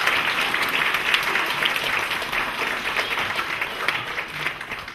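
Theatre audience applauding: dense clapping that thins out near the end and dies away.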